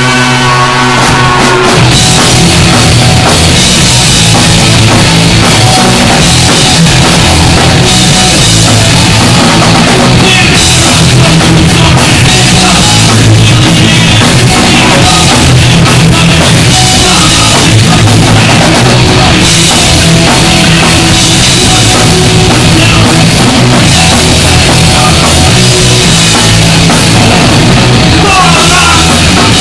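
Punk band playing live: distorted electric guitars, bass and drum kit, loud and dense. A guitar chord rings out at first, and the full band comes in about a second and a half in.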